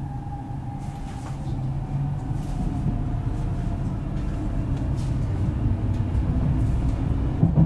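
Hamburg S-Bahn BR474 electric train accelerating away from a station, heard from inside the passenger car. The rumble of wheels and running gear grows steadily louder, with a faint electric motor whine slowly falling in pitch. There is a sharp knock near the end.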